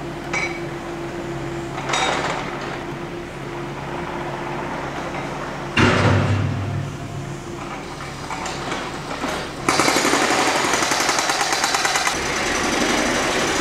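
Cordless drill running into the gunwale of a jon boat, its motor whirring steadily. There is a sharp knock about six seconds in, then a louder, fast-rattling burst of drilling from about ten seconds in.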